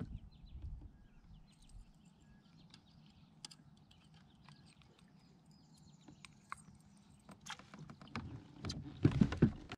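Scattered light clicks and knocks of gear being handled in a plastic fishing kayak as a smallmouth bass is worked into a landing net, with a louder run of thumps and knocks near the end as the fish is lifted from the net.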